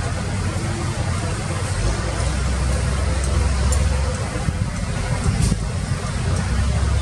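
Excavator engine running with a steady low rumble that grows heavier about two seconds in and again near the end.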